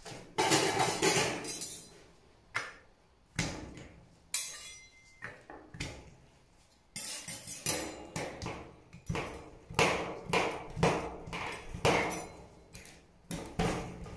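Metal ice-cream-roll spatulas chopping a chocolate egg shell on a steel cold plate, giving sharp knocks and clinks of metal on metal. The strikes are few and spaced at first, then come quick and dense from about halfway through.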